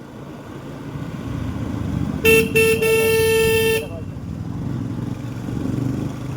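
A vehicle horn sounds two quick short toots and then one longer blast of about a second, over steady road and engine noise.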